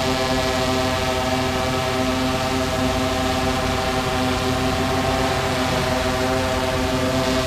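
Large multirotor camera drone hovering and climbing overhead, its propellers giving a steady hum of several even tones.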